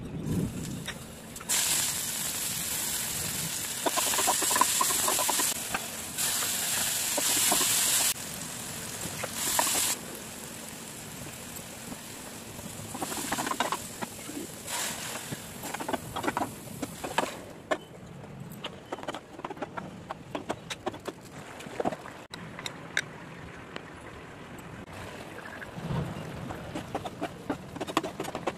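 Hot oil sizzling in a pan as cumin and fennel seeds and curry leaves go in, a loud hiss in spurts for about eight seconds. After that, a ladle stirring and scraping thick masala in the pan, many small clicks and scrapes.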